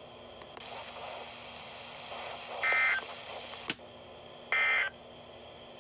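Two short bursts of Emergency Alert System SAME data tones, a harsh buzzing warble, about two seconds apart over a low hiss. They are the end-of-message code that closes a broadcast weather warning.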